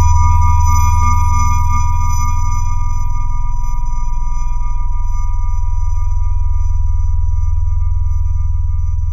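Film sound design: a loud low hum under steady high ringing tones, slowly fading away. This is the ear-ringing effect after a gunshot.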